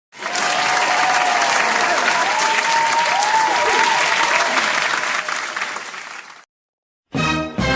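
Applause sound effect: a crowd clapping with a few voices cheering over it, starting abruptly, fading slightly and cutting off about six seconds in. Music starts near the end.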